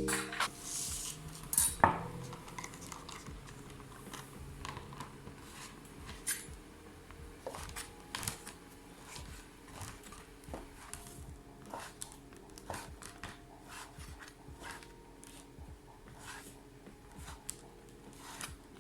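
Light clicks, taps and clinks of dishes and utensils being handled, irregular and sparse, with the loudest clicks about two seconds in.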